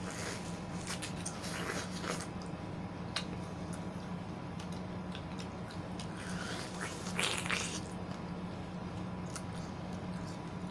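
Bites and chewing of juicy yellow watermelon slices, wet crunchy mouth sounds that come in bunches, loudest about seven seconds in, over a steady low hum.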